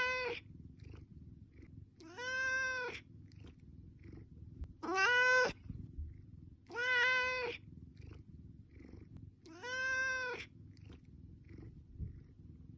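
Domestic cat meowing for food: a call tails off at the start, then four more clear meows follow about every two to two and a half seconds. Each is under a second long, rising and then falling slightly in pitch.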